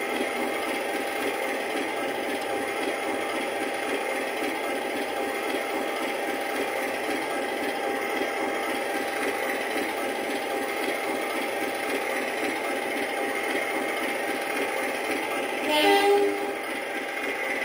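Diesel locomotive engine idling steadily, with a short horn blast about sixteen seconds in.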